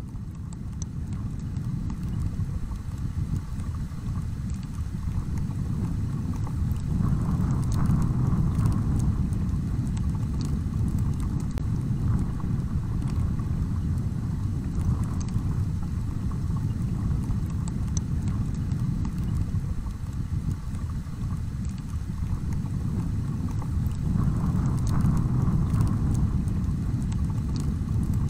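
Wind buffeting an outdoor microphone: a steady low rumble that swells twice, about seven seconds in and again near the end.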